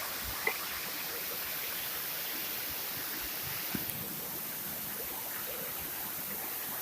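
Steady rush of falling and flowing water from a waterfall and its stream, with a couple of faint knocks about half a second in and near four seconds in.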